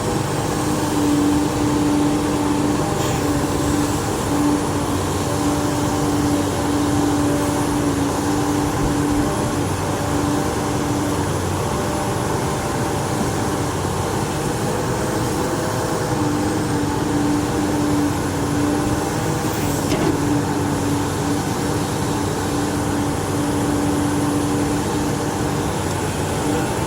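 XCMG XE370CA hydraulic excavator running steadily, its diesel engine and hydraulics giving a constant drone. A steady mid-pitched whine sounds for several seconds, drops out for a few seconds, then returns.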